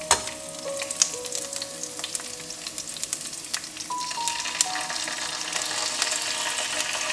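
Lemongrass, kaffir lime leaves and galangal sizzling in a little hot oil in a non-stick wok, with a steady hiss and scattered sharp crackles of spitting oil.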